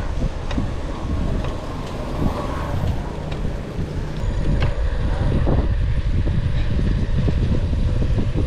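Wind buffeting the microphone of a cyclist riding, a dense low rumble with a few light clicks.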